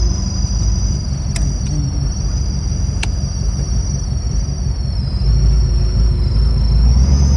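Steady low rumble of a running vehicle, with a high, slightly wavering whine above it and two sharp clicks in the first three seconds.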